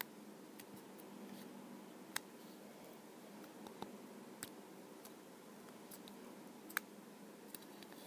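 Stiff slime being poked and pressed with fingers in a plastic tub: faint, with about half a dozen sharp little clicks scattered through it as the slime pops and snaps.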